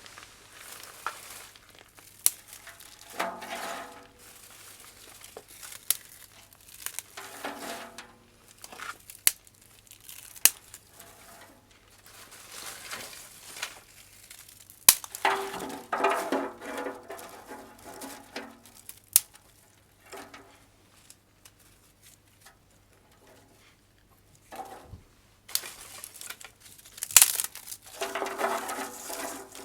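Bursts of rustling and crinkling from something being handled, four separate spells, the longest in the middle, with sharp clicks and clinks in between.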